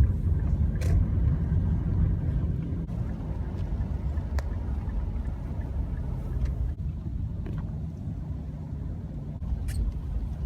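Steady low rumble of a vehicle, with a few faint clicks.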